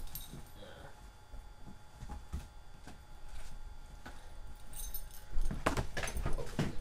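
Handling noise as books are fetched: scattered small knocks and rustles, then a louder run of rustling and knocks near the end as a hardcover textbook is handled close to the microphone.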